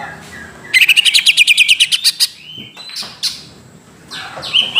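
Greater green leafbird (cucak ijo) singing: a loud, rapid chattering run of about a dozen high notes a second lasting about a second and a half, then a short slurred note, with more song starting near the end.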